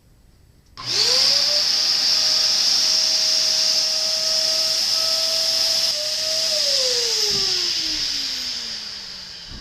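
Vacuum cleaner switched on about a second in, its motor spinning up quickly to a steady whine with a loud hiss of air. Near the end it is switched off and winds down in a long falling whine.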